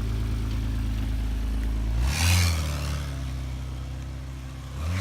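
1984 BMW 528e's straight-six idling, then revved hard about two seconds in as the car pulls away. The engine note then drops and fades, and rises again near the end.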